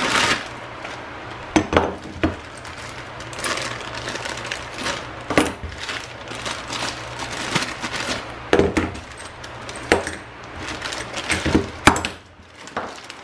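Metal T-handle Allen wrenches clinking against each other and knocking on the bench as they are pulled from their bags and laid out, a dozen or so irregular clinks and knocks, with plastic bag packaging crinkling between them.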